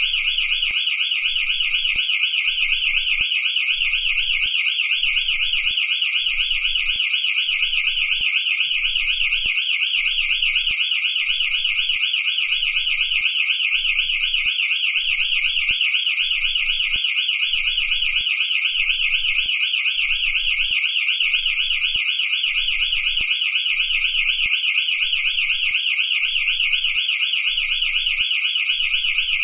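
Electronic building security alarm siren, the kind fitted to a house or shop, sounding continuously: a shrill, rapidly warbling tone at an even loudness.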